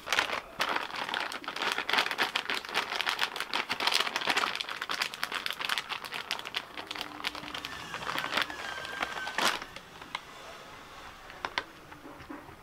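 Packet of tempura flour crinkling and rustling as it is squeezed and shaken to tip flour into a bowl of chopped vegetables, a dense crackling that dies away near the end.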